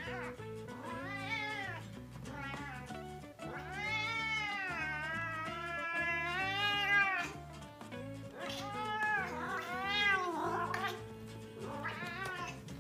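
Domestic cat meowing up at a person in a string of long, drawn-out yowling meows, the longest lasting about three seconds, with background music underneath.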